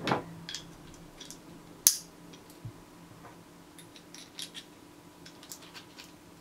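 Small metal parts of a tiny .22 pocket revolver clicking and tapping as the loaded cylinder is fitted into the frame and its pin pushed through: a knock at the start, one sharp click about two seconds in, then a run of light clicks.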